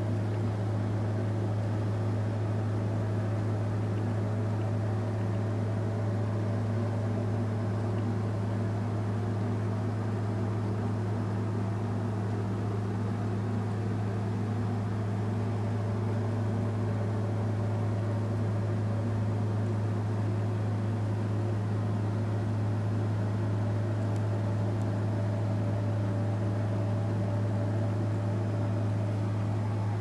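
A steady low hum with faint higher overtones and a light hiss.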